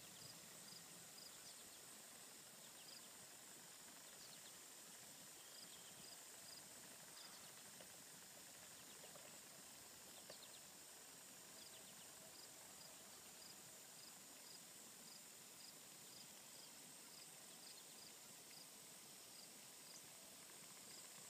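Faint insect chorus: a steady high drone with a short high chirp repeating about twice a second, stopping and starting again now and then.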